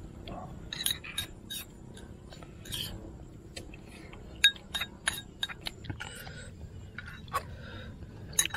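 Metal spoons clinking and scraping against eating bowls and a camping cook pot as people eat, a string of short, sharp clinks at irregular intervals.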